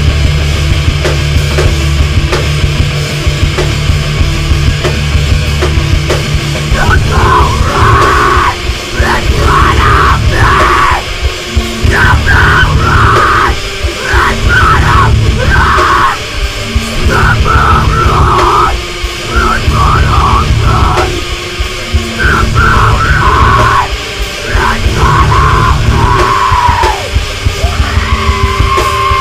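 Loud metalcore band recording: heavily distorted guitar, bass and drums, mastered very hot. Screamed vocals come in about seven seconds in, in short phrases.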